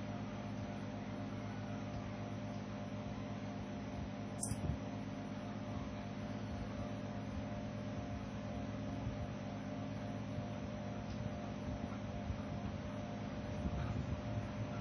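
Steady low electrical hum from the repair bench's equipment, with a single faint click about four and a half seconds in.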